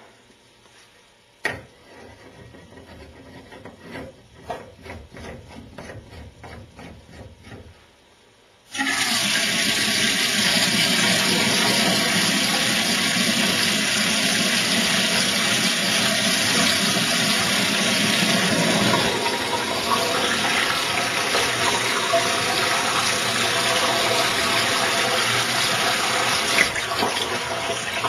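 Tap water running hard through a length of metal water pipe fitted to the tap spout and splashing into a stainless-steel sink, a steady rushing that starts abruptly about nine seconds in. Before it come a few quiet clicks and rubbing sounds from the pipe being handled.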